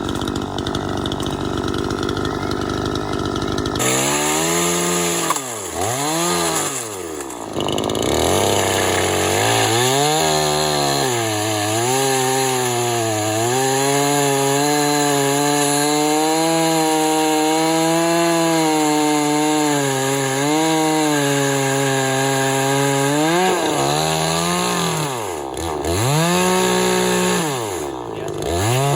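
Chainsaw cutting through a felled log whose outer wood is soft and rotted and whose core is sound. The engine's pitch sags repeatedly as the chain bogs down in the cut and rises again as it frees up.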